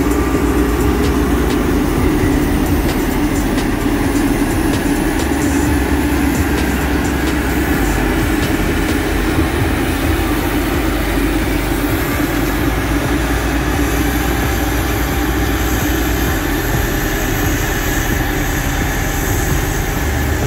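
Diesel engine of a JCB VM115 single-drum vibratory road roller running as the machine drives over a dirt road bed, a steady loud drone that grows slightly fainter as it moves off.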